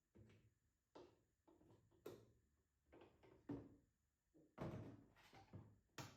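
A series of faint knocks and clunks, about eight in all, some followed by a short ring.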